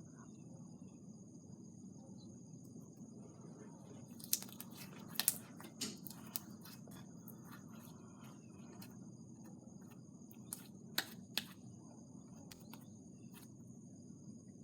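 Foam slime being stretched and squished by hand, giving scattered sharp clicking pops in two clusters, about four seconds in and again near eleven seconds, over a faint steady room hum.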